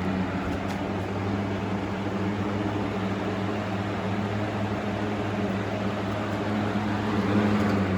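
A Big Brute 20-inch high-velocity box fan running steadily at the second of its three speeds. Its five blades make an even rush of air over a low motor hum.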